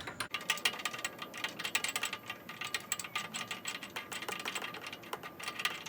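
Ratchet wrench with a spark plug socket clicking rapidly as a loosened spark plug is unscrewed from a small engine's cylinder head.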